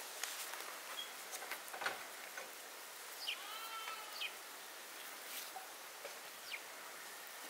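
A single bleat from a goat or sheep about three seconds in, short and curving in pitch. A few light clicks and knocks sound around it, the sharpest near two seconds in.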